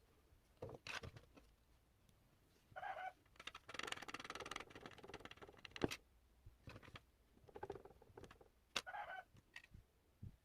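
Faint handling sounds of small parts being worked by hand: scattered clicks and taps, a spell of scraping in the middle, and two short squeaks.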